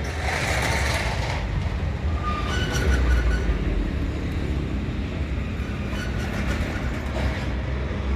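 Eicher 485 tractor's three-cylinder air-cooled diesel engine running steadily at idle, a low even drone.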